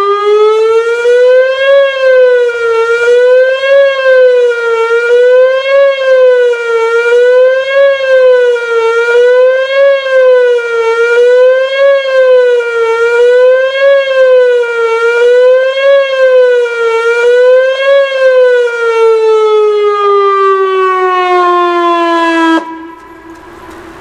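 Whelen WPS 2902 electronic outdoor warning siren sounding the attack signal (fast wail): a loud tone rising and falling about once every two seconds. Near the end it glides down in pitch and cuts off abruptly.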